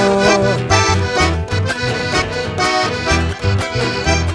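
Accordion-led chamamé band playing live through a PA: accordion carrying the melody over guitars and a steady bass beat, in an instrumental passage with no singing.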